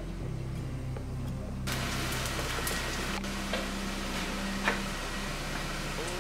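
Kitchen sounds: a low steady hum for the first second and a half, then a steady hiss with scattered clicks and one sharp clink about four and a half seconds in as utensils and dishes are handled at the stove.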